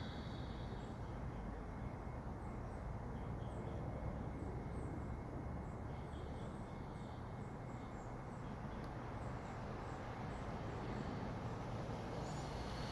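Outdoor ambience: a steady low rumble with faint, regularly repeated high chirps.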